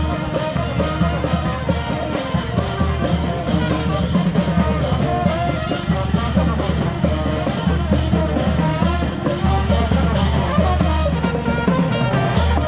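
Upbeat music with a steady drum beat and a bass line.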